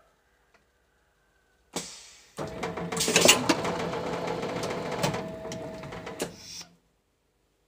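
Plastic bottle blow molding machine cycling: a sharp hiss of air about two seconds in, then about four seconds of loud mechanical clatter and hissing as the mold opens and shuts, stopping suddenly.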